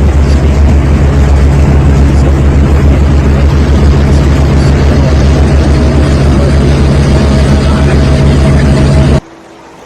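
A heavy engine running loud and steady with a rapid, even pulsing rumble, cutting off suddenly about nine seconds in.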